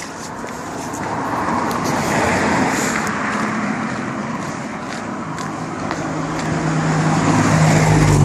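Motor traffic passing close by on a road: tyre and engine noise of a car swells and fades about two seconds in, then a second vehicle with a steady low engine hum draws near and is loudest at the end.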